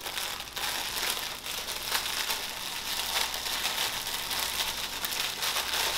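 Clear plastic wrap around a large cookie crinkling as hands work at the sealed wrapper, a steady crackle with many small ticks.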